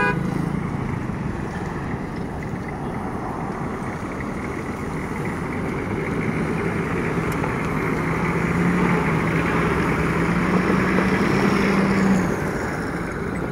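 Nissan Patrol Y61 turbo-diesel engine working under load as the four-wheel-drive SUV crawls over a dirt mound. The engine note climbs slowly in pitch and loudness from about six seconds in, then falls off about twelve seconds in.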